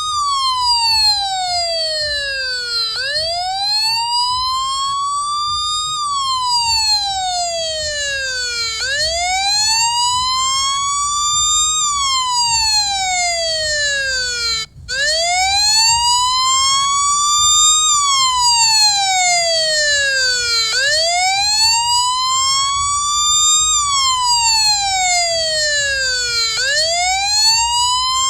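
Electronic police siren on its wail setting: a single tone that climbs for about three seconds and sinks for about three, over and over, with a steady low rumble underneath. It cuts out for a split second about halfway through.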